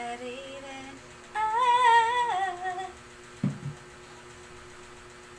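A woman humming a tune to herself, rising to one long held note with a wobble in its pitch that ends about three seconds in. A single dull knock follows shortly after.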